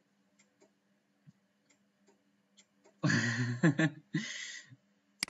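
A few faint clicks, then about three seconds in a man's brief wordless vocal sound, breathy and lasting under two seconds.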